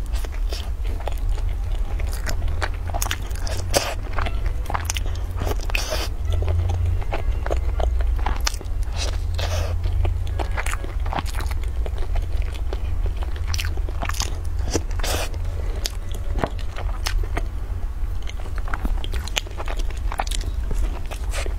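Close-miked mouth sounds of a person biting and chewing a soft pastry: repeated wet smacks and small crunches, over a low steady hum.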